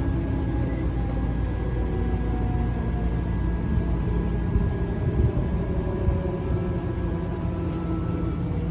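Tobu 9000 series electric train heard from inside a motor car: the rumble of running on the rails with the whine of its Toyo Denki armature chopper control, a normal-sounding chopper. Several steady whine tones sit over motor tones that slowly fall in pitch as the train slows, and one of the steady tones changes to a lower one near the end.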